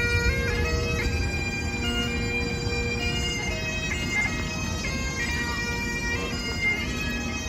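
Reedy, bagpipe-like music: long held notes stepping through a melody over a steady low drone, with a low rumble underneath.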